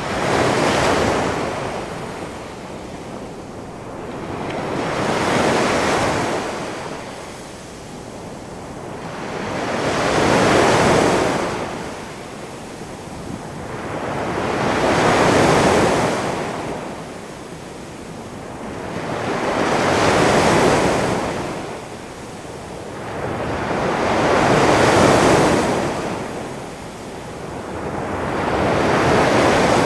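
Big ocean waves rolling and crashing, each surge swelling up and fading away about every five seconds, seven times over.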